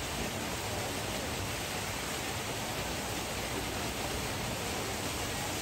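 A steady, even rushing noise with no distinct splashes or calls.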